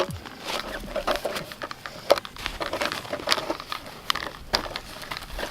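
Irregular crunching and scraping of lake ice at a freshly drilled ice-fishing hole, a string of sharp clicks and scrapes.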